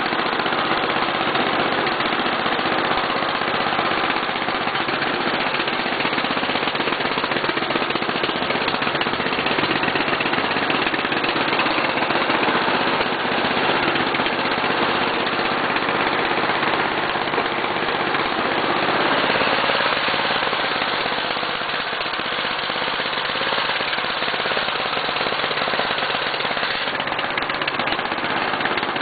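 A 1985 Briggs & Stratton 11 hp single-cylinder engine running steadily as the riding lawn tractor drives along, with a rapid, continuous chatter.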